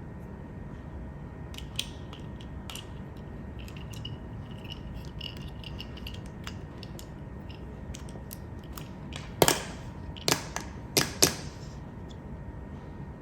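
Small mechanical clicks and knocks over a steady low background, with a quick run of four loud sharp clicks about nine to eleven seconds in.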